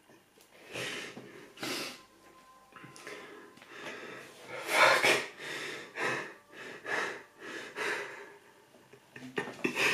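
A man's held-back fit of laughter: breathy bursts about once a second, the loudest about five seconds in.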